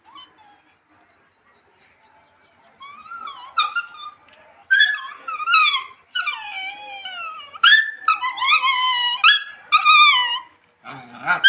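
Puppies whining and whimpering in high-pitched cries that mostly fall in pitch, starting about three seconds in and repeating one after another.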